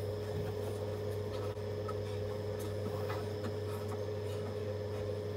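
Embroidery needle and thread passing through taut fabric: faint soft rubs and light ticks over a steady low hum.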